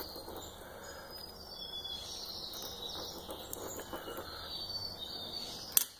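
Acrylic powder being stirred with a small tool in a small glass jar: faint scratching of the tool in the powder and against the glass, with one sharp click near the end.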